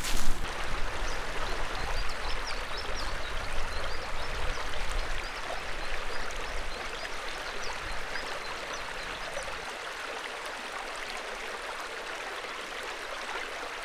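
Shallow, fast-flowing river rushing steadily over its bed. A low rumble under it dies away over the first seven or eight seconds, and the water sound stays even after that.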